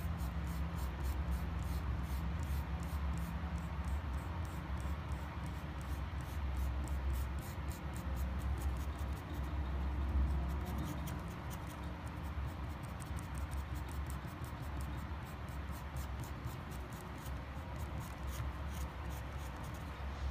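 Felt tip of an acrylic paint marker scratching over a rough stone in quick back-and-forth strokes as it colours in, over a steady low hum.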